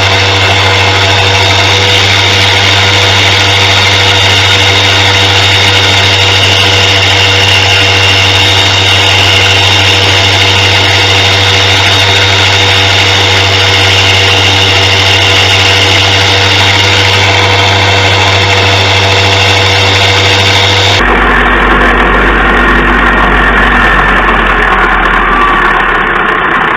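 Electric knife-sharpening grinder running with a steady hum. About 21 seconds in, the sound changes abruptly to a different, deeper hum that goes on steadily.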